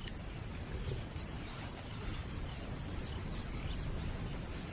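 Wild outdoor ambience: a steady low rumble with a faint high insect whine and a few faint, short bird-like chirps.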